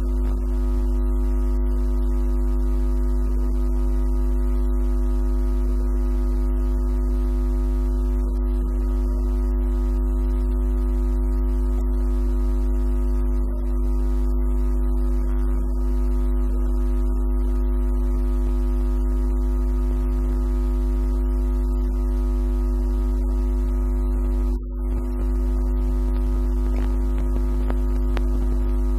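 Loud steady drone of several held tones stacked one above another, heaviest in the deep bass, with a brief dropout about 25 seconds in.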